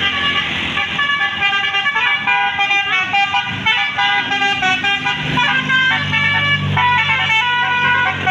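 Indonesian bus 'telolet' horn, a 12-note Basuri multi-trumpet electric horn, playing a quick tune of short stepping notes. A low engine hum joins about five seconds in.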